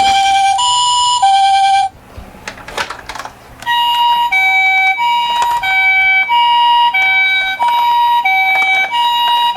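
Japanese-style two-tone ambulance siren alternating high and low ('pee-po') about once every 0.6 s. It cuts out for about two seconds in the middle, leaving a few faint clicks, then starts again.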